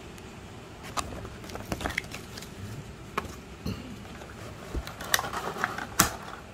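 Clear plastic packaging handled by hand: irregular clicks, taps and crinkles as the case is opened and the microphone is pulled from its plastic tray, with the sharpest click about six seconds in.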